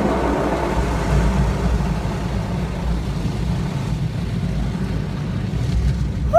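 Automatic car wash machinery working over the car, heard from inside the cabin: a steady loud wash of noise over a low rumble.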